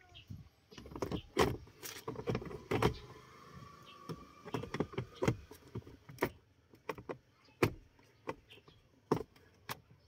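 Nissan Navara's plastic glove box being refitted and pushed shut: an irregular run of sharp plastic clicks and knocks, loudest in the first three seconds.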